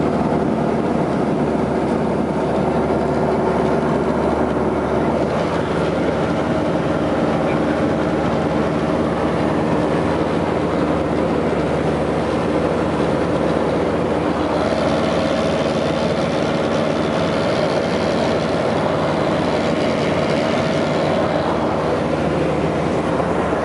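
Aircraft engine drone heard from inside the cabin in flight: a loud, steady hum of several held pitches over rushing noise.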